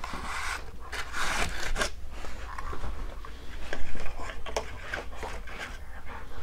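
Cardboard box and plastic insert of stylus packaging being handled, rubbing and scraping with scattered clicks, and a louder bump about four seconds in.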